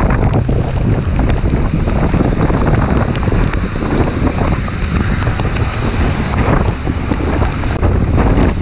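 Wind buffeting the microphone of a moving motorcycle in the rain: a loud, steady rushing noise with a deep rumble and scattered small ticks.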